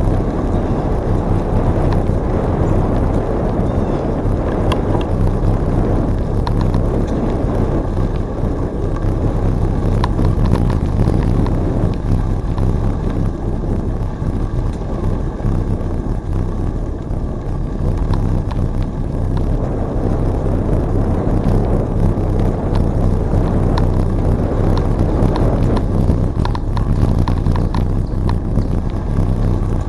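Wind rumbling over the microphone of a camera on a moving bicycle, steady and loud, with the bike's tyres rolling along the trail and faint ticks scattered through it.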